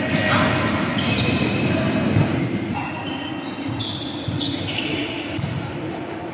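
Echoing sports-hall din during a volleyball game: players moving on the court, scattered ball thuds with a louder thump about two seconds in, and indistinct voices in the background.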